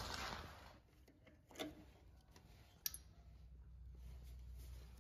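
Near silence: a low steady hum, broken by two faint clicks about one and a half and three seconds in.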